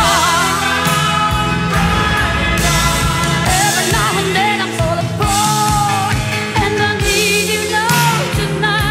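Power ballad playing: a sung vocal melody over a rock band with steady drum beats.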